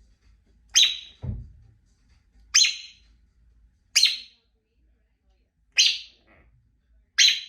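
African grey parrot giving five short, shrill calls, about one every one and a half seconds. A low thump comes just after the first call.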